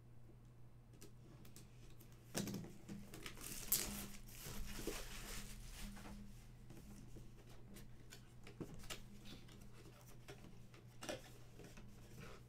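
Cardboard collectible-figure box being handled and opened: rustling and scraping with clicks, busiest from about two to six seconds in, then scattered light taps.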